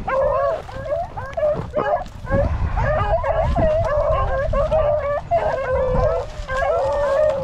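A pack of rabbit hounds baying together in full cry on a freshly jumped rabbit, many overlapping yelps and bawls running on without a break.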